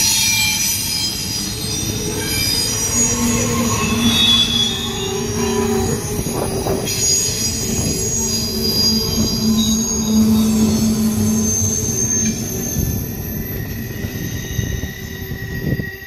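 Norfolk Southern intermodal train's cars rolling past, wheels squealing in several steady high tones over the rumble of the cars. The sound drops away near the end as the last car clears.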